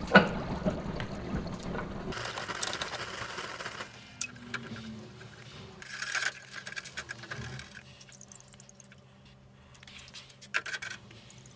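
Red-hot steel quenched in an oil bath: the oil crackles and sizzles loudly for the first few seconds as it flares into flame, then dies down. A few short metallic clinks follow, around the middle and near the end.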